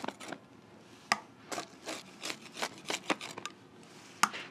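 A rolling pizza cutter wheel slicing through a crispy pizza crust on a wooden cutting board, giving a run of irregular crunching, crackling strokes. Two sharper clicks stand out, about a second in and near the end.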